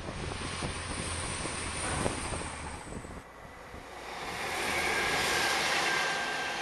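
Class 185 diesel multiple unit passing: a steady low engine and wheel rumble with a crackle of short knocks. About three seconds in, it cuts to a rushing noise that swells and eases with a faint steady high whine, as another train approaches.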